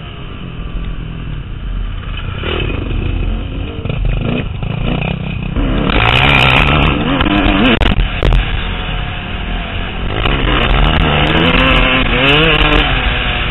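Motocross dirt bike engine revving up and down as it is ridden, its pitch rising and falling several times. It gets louder about halfway through.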